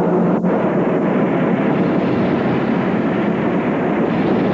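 Continuous loud rumbling noise of a truck tumbling down a rocky cliff, with dirt and stones sliding along with it.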